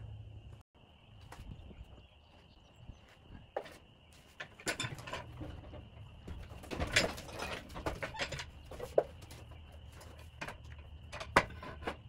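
Scattered knocks and thumps of a log being rolled by hand along wooden log-deck beams onto a portable sawmill's bed, the loudest a few seconds apart near the middle and end, over a faint steady high tone.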